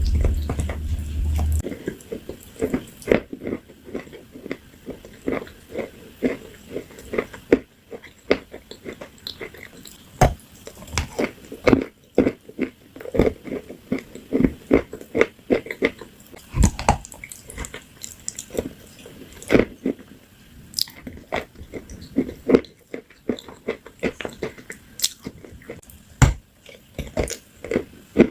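Close-up eating sounds: crisp food being bitten and chewed, with many irregular crunches and crackles a few times a second. A low steady hum sounds under it for the first second or two.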